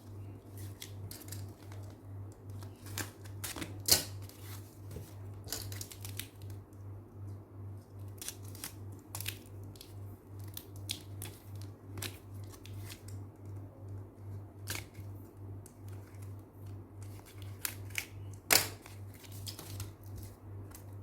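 Packaging being handled and opened by hand: repeated crinkles, snaps and scrapes, with two sharper, louder snaps about 4 and 18 seconds in. Under them runs a steady low hum that pulses about twice a second.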